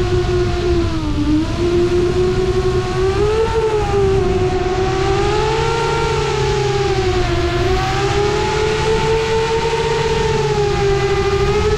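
Brushless motors and propellers of a 7-inch FPV quadcopter whining in flight, heard from a camera mounted on the frame; the pitch wavers up and down with the throttle, dipping about a second in, over a low wind rumble.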